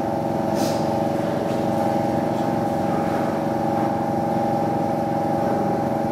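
Boeing 737-700's CFM56 jet engines at taxi power, a steady muffled whine made of several held tones, heard through terminal window glass.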